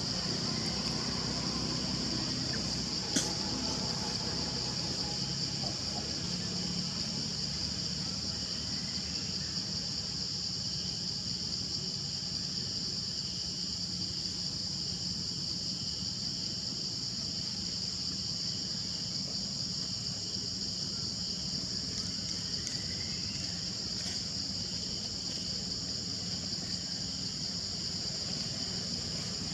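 Steady high-pitched insect chorus droning without a break, with a single sharp click about three seconds in.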